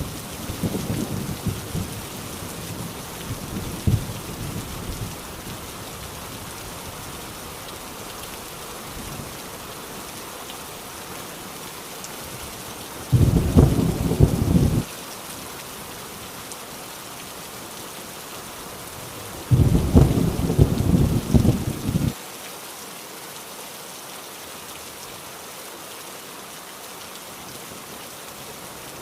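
Heavy rain falling steadily, with rumbles of thunder. Low rumbling dies away over the first few seconds, then two loud rolls of thunder come about halfway through and again about two-thirds of the way in, each lasting around two seconds.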